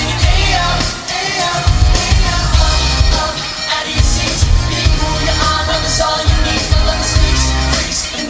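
Live pop band performance: lead vocals singing over a heavy, pulsing bass and drum backing, amplified through a concert PA.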